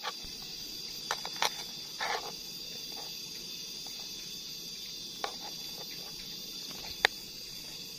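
A kitchen knife cutting leafy green stalks on a plastic cutting board: a few separate knocks of the blade on the board, the sharpest about seven seconds in. A steady high-pitched insect drone runs underneath.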